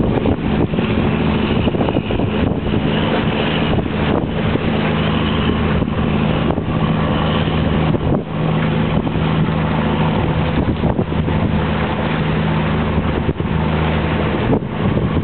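A steady engine drone with a constant low hum, mixed with wind buffeting the microphone in irregular gusts.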